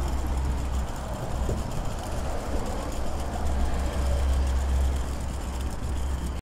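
Hard-shell suitcase's wheels rolling over brick paving: a steady rumble with many small clicks.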